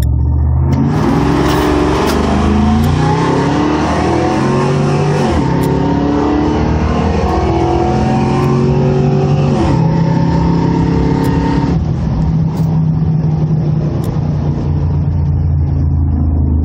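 Drag-racing pickup trucks, a supercharged V8 Ford F-150 SVT Lightning and a V8 Nissan Titan, launching hard off the line. Their engines rev up through the gears, with the pitch rising and dropping back at two upshifts. About twelve seconds in they lift off, and a steady, lower engine note is left.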